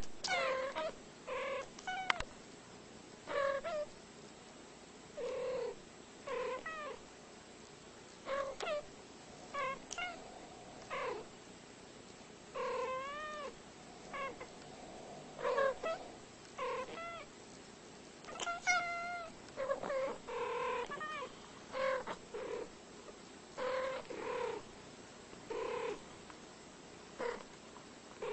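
Two domestic cats trading short meows and chirping calls back and forth, a long run of brief calls about one a second, their pitch arching up and down.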